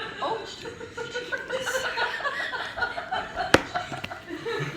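A person laughing and chuckling, with a single sharp click about three and a half seconds in.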